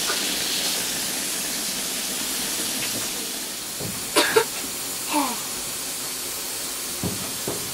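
Steady hiss of steam from a South African Railways Class 15F steam locomotive with its boiler in steam, near working pressure. A few short knocks and a brief falling tone come about halfway through, and two small thumps near the end.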